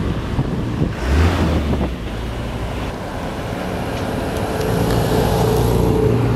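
Wind buffeting the microphone over a steady outdoor rumble, with background music fading in during the second half.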